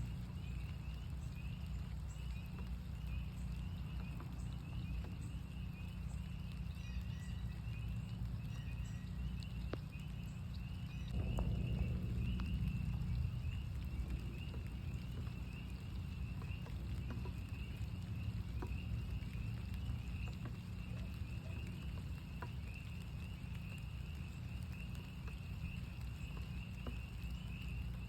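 A chorus of northern spring peepers calling without a break, a dense overlapping mass of short high peeps, with scattered faint taps of raindrops. Under it runs a low rumble that swells louder for about two seconds, about eleven seconds in.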